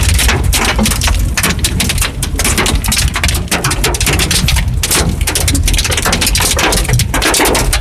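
Hailstorm: hailstones and heavy rain pelting down, a dense, unbroken clatter of countless small hard impacts over a steady rush.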